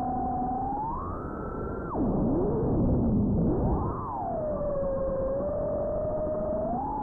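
FPV quadcopter's brushless motors whining, the pitch following the throttle. The pitch holds steady, rises about a second in, then drops sharply to a low wavering note under a louder rush for about two seconds, before climbing again and settling at a lower steady pitch.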